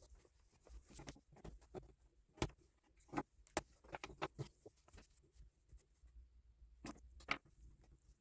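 Faint, irregular taps and scratches of a pen and ruler on a paper planner page as marks are made along the ruler, with a few sharper clicks among them.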